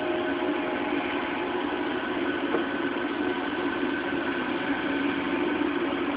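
Running sound inside a JR 211 series electric train's motor car at steady speed: the traction motors and gears hum on level, unchanging tones over the rumble of the wheels on the rails.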